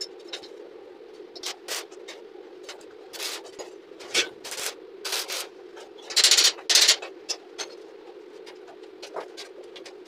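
A flat steel piece scraped, tapped and knocked against the steel scrollwork of a welded window grill as it is shifted into position by hand, with two longer scrapes about six seconds in. A steady hum runs underneath.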